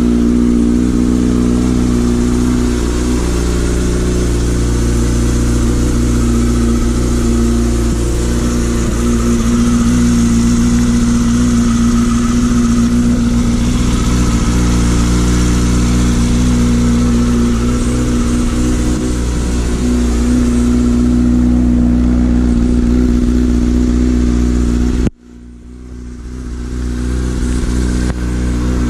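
A 2004 Yamaha R6's inline-four engine idles steadily just after being started, running on fresh oil so the oil can circulate before the level is rechecked. Near the end the sound cuts out abruptly and fades back in.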